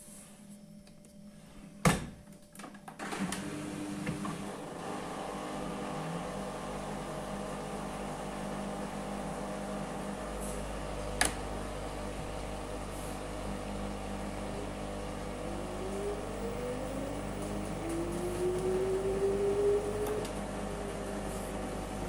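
An LG direct-drive front-loading washing machine's door clicks open sharply about two seconds in. Then the drum turns loaded with wet towels, its motor running with a steady hum and a whine that rises in pitch near the end as the drum speeds up.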